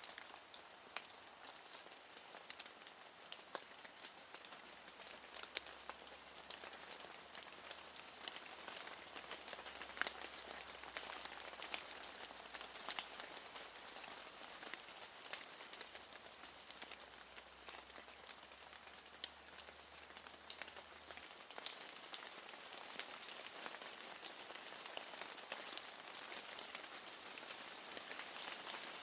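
Steady rain falling, with a constant hiss and many sharp, scattered drop ticks.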